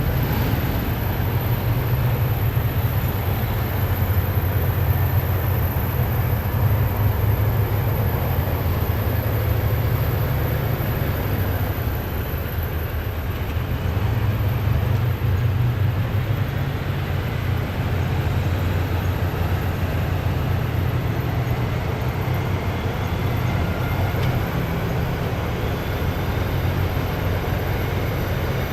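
Heavy military vehicles' engines running in a steady low rumble as a column drives past, with only slight rises and falls in loudness.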